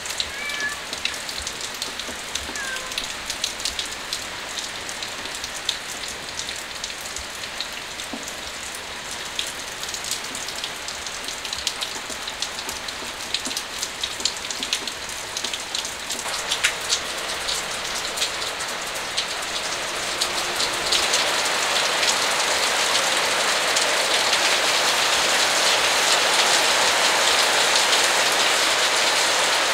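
Rain falling steadily, with scattered sharp drips and ticks through the first half. From about sixteen seconds in it grows heavier and denser, settling into a louder, even downpour.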